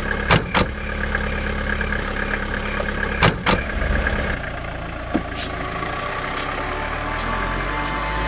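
A car engine idling, with car doors shutting in two pairs of sharp thumps, one pair just after the start and another about three seconds in. The engine sound shifts about four and a half seconds in as the car drives off.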